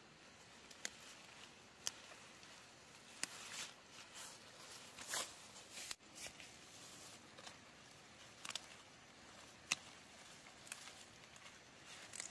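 Stems of wild greens snapping as they are picked by hand, a few sharp snaps spaced irregularly a second or more apart, with brief leaf rustling in between.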